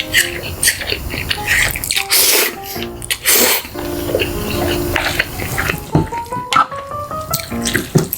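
Close-miked wet eating sounds, chewing and slurping in loud bursts, the longest about two and three seconds in, over background music with a melody that climbs in steps near the end.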